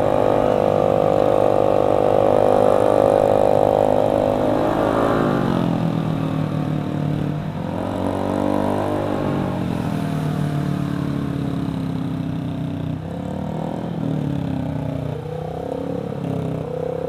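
Motorcycle engine running while riding in traffic. The note holds steady, drops as the throttle is closed about five seconds in, then rises and falls again a few seconds later.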